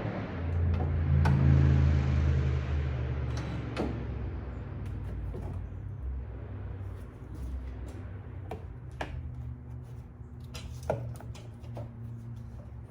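Scattered sharp clicks and knocks of hand tools and fasteners being handled during work under a car, over a low hum that is loudest in the first few seconds and then fades.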